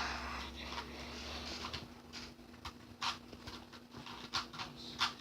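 A plastic Rubik's cube being twisted by hand while it is solved: a string of irregular short clicks and clacks from its turning layers, several close together at times.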